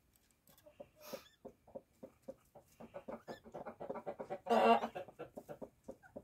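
Mother hen brooding kittens, clucking in a quick run of short, repeated soft clucks that come closer together in the middle. About four and a half seconds in there is one louder, harsher burst.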